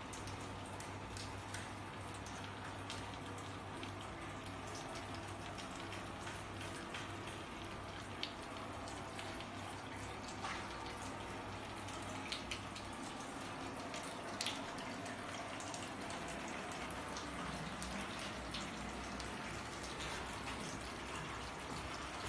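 Steady trickle of water running through a hydroponic growing rack's PVC pipes and troughs, with a few scattered drips and a low hum underneath that shifts lower about halfway through.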